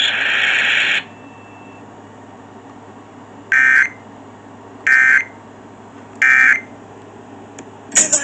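A loud steady hiss cuts off about a second in. It is followed by three short warbling data-tone bursts about 1.3 seconds apart: the Emergency Alert System end-of-message code that closes the monthly test.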